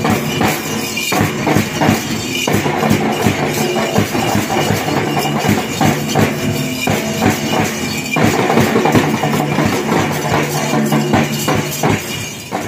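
A school percussion band playing: a bass drum beaten in a steady rhythm with small hand cymbals clashing, over steady low held notes.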